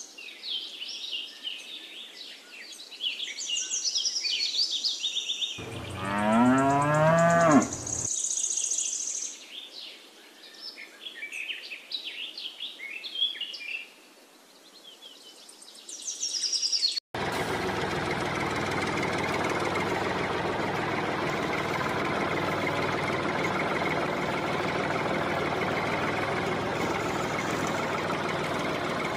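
Birds chirping, with one long cow moo lasting about two seconds, around a fifth of the way in. Just past halfway the sound cuts abruptly to a tractor engine running steadily.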